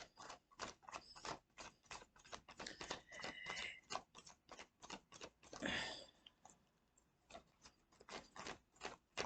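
Tarot cards being handled and shuffled: a quick, irregular run of light clicks and snaps, with a short sliding rasp about three seconds in and another near six seconds.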